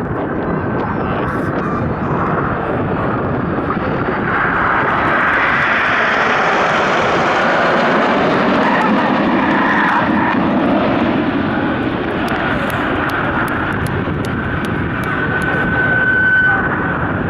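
A formation of Red Arrows BAE Hawk T1 jets, each with a single turbofan, flying past in a steady jet rush that builds to its loudest in the middle and then eases off.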